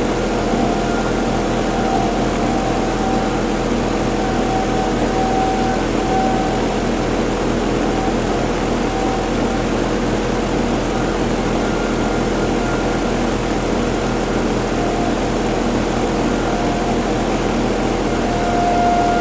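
Federal Signal outdoor warning sirens sounding a steady alert tone that swells and fades every second or two as the rotating sirens turn, over a steady droning noise.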